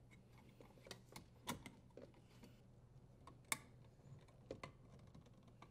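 Faint, scattered clicks and taps of a hand working a dishwasher's sheet-metal terminal box cover and its securing screw, with two louder clicks, one about a second and a half in and one about three and a half seconds in.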